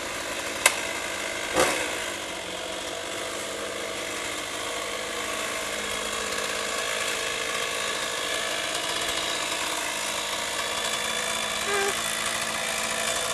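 A machine running steadily with an even mechanical whine, with two sharp clicks about a second apart near the start.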